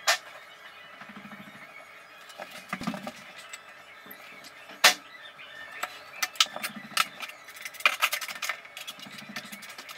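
Hard stone pebbles and tile tools clicking and clacking as a river-rock pebble mosaic is handled and set on the floor. One sharp knock comes at the start, another about five seconds in, then a quicker run of clicks.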